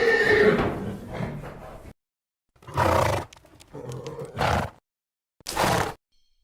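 Horse calling loudly for about two seconds, then three shorter, breathier vocal bursts about a second apart.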